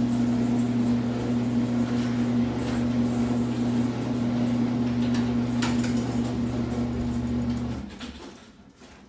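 Genie garage door opener motor running with a steady hum and a few light clicks as the door travels, stopping about eight seconds in.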